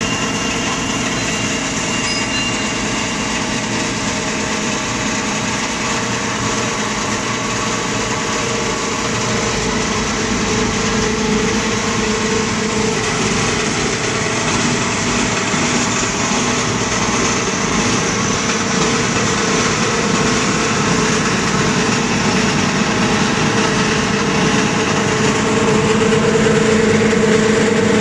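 A mini copper wire granulator running steadily, a dense mechanical noise from its electric motor and cutter as it chops scrap cable into granules. The noise grows a little louder near the end.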